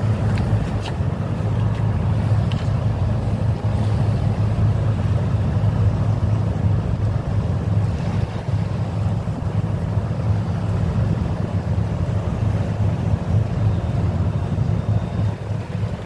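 Steady low hum of a boat's engine running under way, with wind and rushing water.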